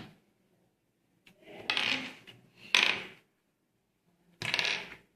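Plastic Rubik's cube pieces being handled and clicked into place: three short bursts of clattering plastic.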